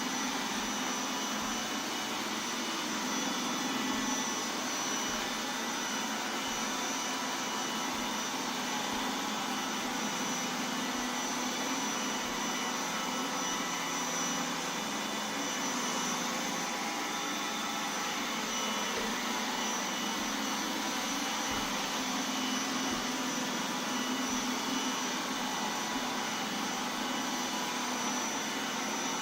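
iRobot Roomba 980 robot vacuum running steadily, a constant high whine over its motor and brush noise.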